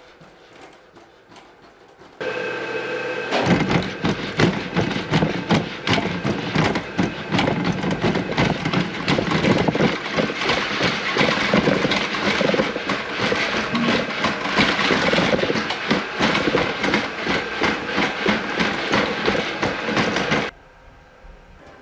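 Boston Dynamics Spot robot dog's motors and legs working close to the microphone as it walks: a steady motor whine comes on suddenly about two seconds in, then gives way to a dense, irregular mechanical clatter that cuts off abruptly near the end.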